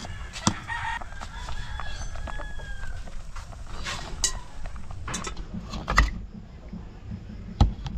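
A rooster crowing in the first few seconds. Hard shells clacking against a metal pot as boiled conchs are lifted out with tongs and set down, with sharp clacks about six seconds in and again near the end.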